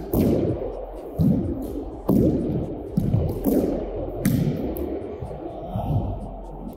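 A racquet-sport ball rally in an enclosed court: sharp hits of racquet on ball and ball on walls and floor, about one a second, each echoing off the hard walls.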